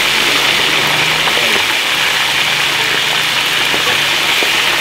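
Food frying in hot oil: a steady, loud sizzle, with a faint low hum underneath.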